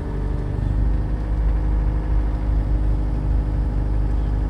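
Skid loader engine running steadily at an even speed.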